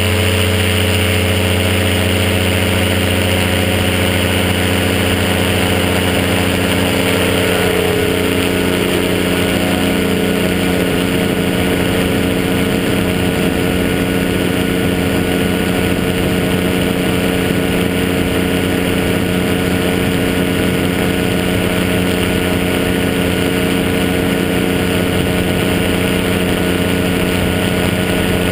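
Rotax 503 two-cylinder two-stroke engine of a Quicksilver GT400 ultralight running steadily at full takeoff power, through the takeoff roll and climb-out.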